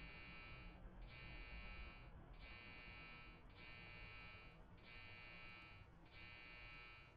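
Faint electric buzz that comes in regular pulses, each about a second long with a short break between, six in a row.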